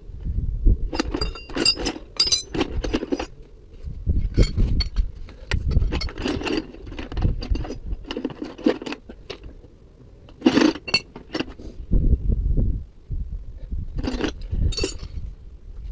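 Metal hand tools and parts clinking and clattering in irregular bursts as sockets, a ratchet and a breaker bar are handled and set down, over a low rumble.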